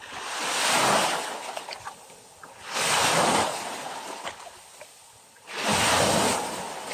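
Small ocean waves breaking and washing up the beach: three surges a few seconds apart, each one swelling up and then fading to a hiss.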